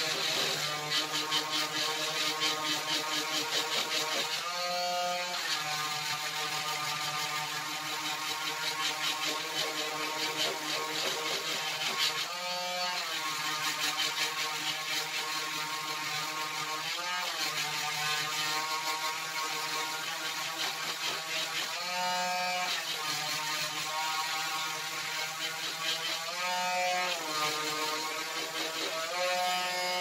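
Corded electric detail sander running on a wooden branch, with a steady, buzzing motor hum. The hum's pitch sags briefly every few seconds, about five times.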